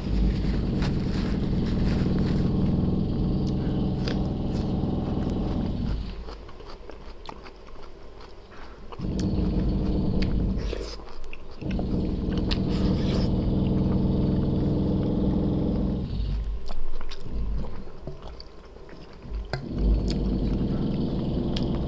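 Chewing with scattered sharp clicks, over a steady low humming drone that runs in three long stretches with a few seconds' break between them.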